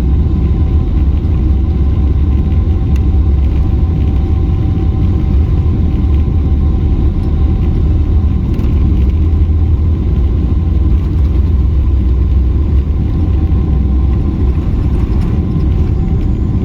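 Cabin noise inside a Boeing 777-300ER with its GE90 engines running at low power: a steady, deep rumble with a faint, even whine over it.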